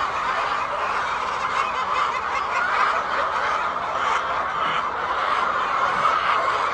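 A large flock of laying hens clucking and chattering all at once: a steady, dense chorus of overlapping calls.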